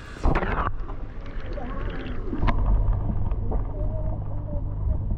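A brief splash as the camera is plunged into the goldfish tank. After it comes the dull, muffled sound of a microphone underwater: a steady low rumble with the high sounds gone.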